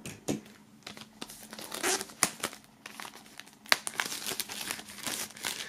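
Plastic film wrapping on a DVD being torn open at its sealed seam and pulled off, crinkling unevenly with a few sharp clicks.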